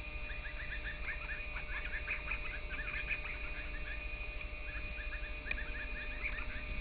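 Many small birds chirping rapidly in a busy, overlapping chatter, over a steady low hum.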